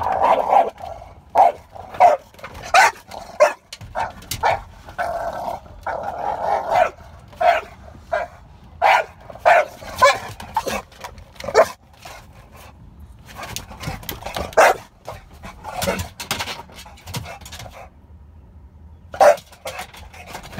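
Large dog barking in a long, irregular run of loud barks, about one a second, with a pause near the end before a last bark: alert guard-dog barking from a car's back seat at what it sees outside.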